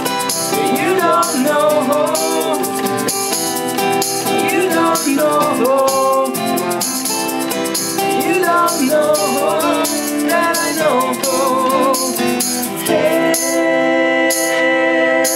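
Acoustic indie rock band playing: acoustic guitar strumming under wordless sung vocal lines, with a tambourine shaken in a steady rhythm.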